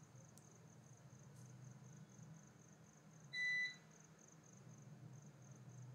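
One short electronic beep, about half a second long, a little past the middle. Under it runs a faint, steady, high-pitched pulsing chirp and low room hum.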